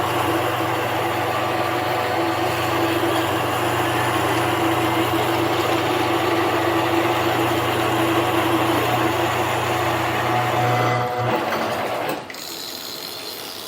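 Harbor Freight mini lathe running with a steady motor and gear hum, then switched off about twelve seconds in, leaving a much quieter sound.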